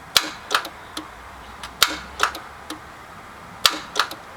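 Van starter clicking each time the key is turned, without cranking the engine: sharp clicks in three groups of two or three, each group about two seconds apart. With the battery posts already cleaned, the owner puts the clicking down to a failing starter.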